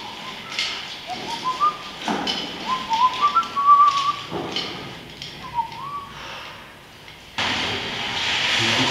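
A person whistling a tune in short phrases, with a few faint knocks. A steady hiss starts suddenly near the end.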